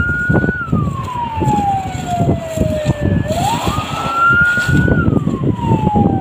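An emergency vehicle siren wailing: it holds high, slides slowly down, sweeps back up about three seconds in and slides down again. Steady low noise runs underneath.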